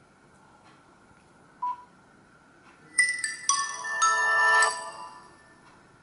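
A short beep, then the Nokia Asha 202's start-up tune as the phone boots: a bright chime of several quick notes lasting about two seconds from the phone's small speaker.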